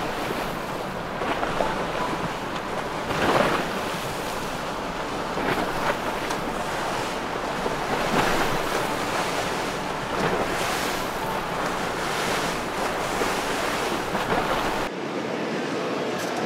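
Wind buffeting the microphone over the rush of waves and water, swelling and easing several times; the low rumble cuts out suddenly near the end.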